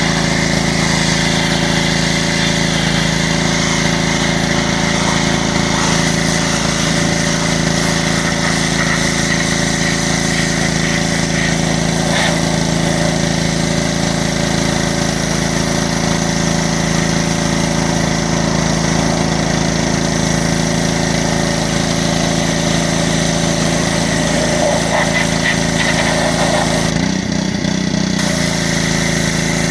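Gas-engine pressure washer running steadily at a constant speed, with a brief dip in the sound near the end.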